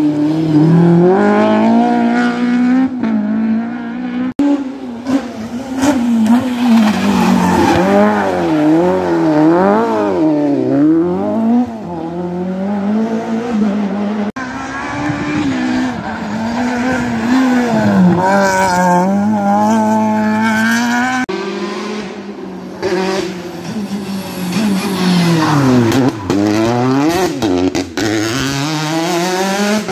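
Rally car engines revving hard through tight corners, the pitch swooping up and down with throttle blips and gear changes. Several passes by different cars are cut together, and the sound changes abruptly about four, fourteen and twenty-one seconds in.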